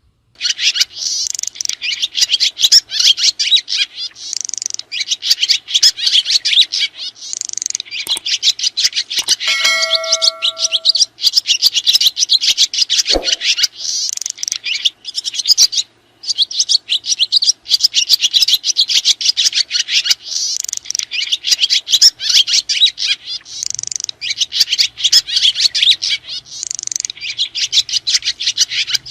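Swiftlets twittering in a dense, fast, high-pitched chatter that runs almost without a break. About ten seconds in, a short chime-like ding of a few steady tones sounds over it.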